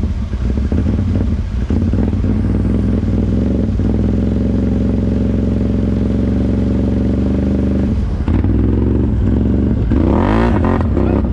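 ATV engine running at a steady speed, then revved up and down in quick blips near the end.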